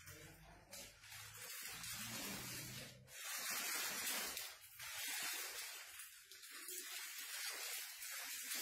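Hissing, rustling noise in several stretches of one to two seconds each, with short gaps, as a plastic PPE kit is handled and taken off.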